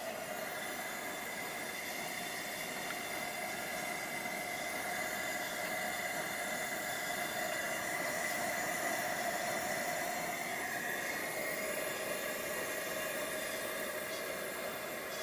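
Coleman 424 dual-fuel camping stove burner running on petrol: a steady hiss of pressurised fuel burning, with two faint steady tones through it.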